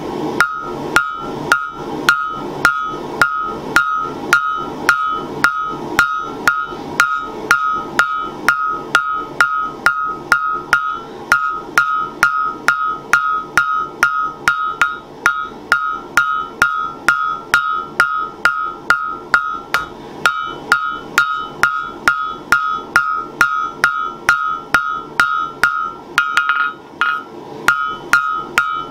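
Hand hammer striking a red-hot spring-steel bar on an anvil, forging a knife blade, at a steady pace of about two blows a second. Each blow leaves a bright ring from the anvil. The rhythm breaks briefly near the end.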